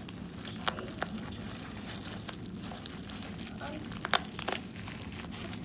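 Packaging being unwrapped by hand: wrapping crinkling and rustling, with a handful of sharp clicks and snaps, over a low steady hum.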